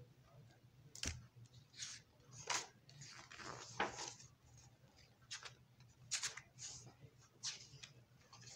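A hardcover picture book being opened and its paper pages flipped: a sharp tap of the cover about a second in, then a string of short page swishes and rustles.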